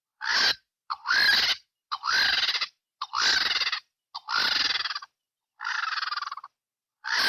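White-backed vulture calling: a series of about seven calls, roughly one a second, most of them a short note followed at once by a longer one that rises and then falls in pitch, with silence between the calls.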